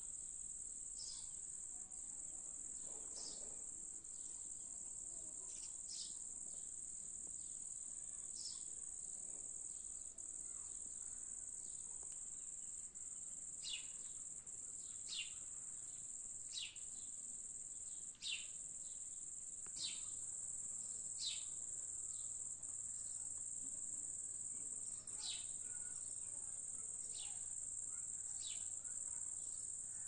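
Crickets trilling as one continuous high-pitched sound, with short downward-sliding chirps coming every second or two, more often in the second half.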